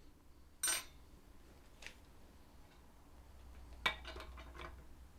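Tool handling on a workbench: a steel mandrel rod is set away with a short metallic clatter and ring about two-thirds of a second in, then a sharp click near four seconds and a few lighter knocks as the cordless drill is handled.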